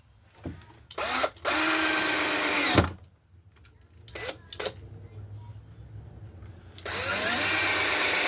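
Power drill driving screws into a pine roof board: two runs of about two seconds each, the motor whine rising as it spins up and then stopping abruptly as each screw seats. A few short clicks and knocks come before and between the runs.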